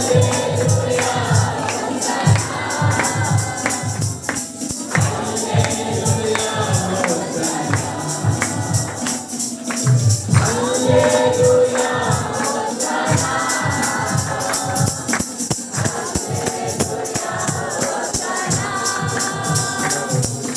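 Devotional worship song: a group of voices singing together over a steady low beat, with a tambourine shaking throughout.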